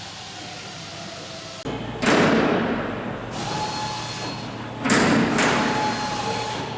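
Two loud thumps about three seconds apart, each dying away over about a second.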